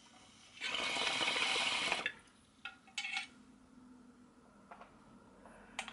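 Water bubbling in a glass straight-tube bong as a hit is drawn through it, for about a second and a half, then stopping. A few brief noises follow a little later, and a single click sounds near the end.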